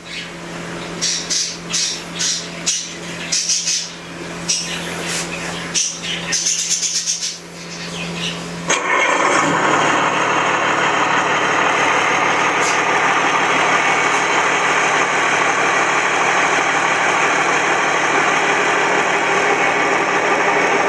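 Engine sound effect: a start-up phase with a steady hum and short repeated hissing bursts, then an abrupt change about nine seconds in to a loud, steady engine run.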